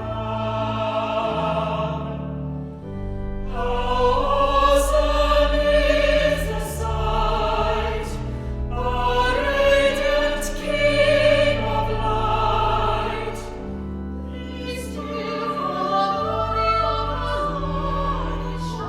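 Classical singing with sustained accompaniment: held, wavering notes over long low notes, swelling louder in the middle and easing off.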